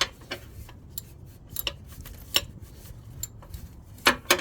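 Socket ratchet clicking in short back-and-forth swings as a bolt is tightened in a cramped space: a few sharp clicks at a time, at irregular intervals, with a quick cluster near the end.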